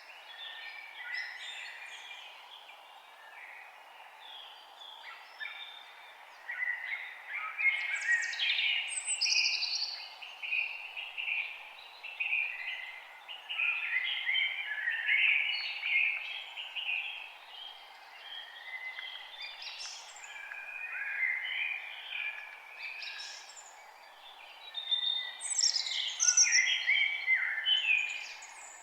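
Several songbirds singing over one another in quick, varied phrases, over a steady faint background hiss. The singing swells loudest about a quarter of the way in and again near the end.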